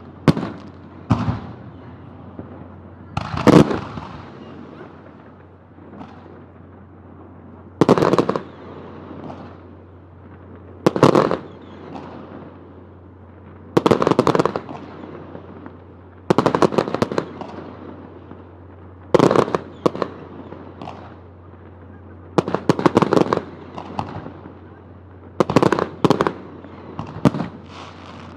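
Aerial fireworks bursting overhead: a bang every few seconds, some in quick clusters, each followed by echoing crackle.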